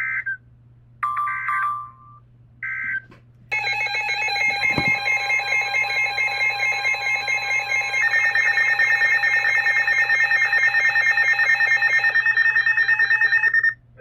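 Weather radio emergency alert tones: three short electronic data bursts, then a loud, rapidly pulsing multi-tone alarm of about ten seconds. It grows more piercing about halfway through as a higher tone joins, then cuts off sharply. This is the tone sequence that opens a new alert.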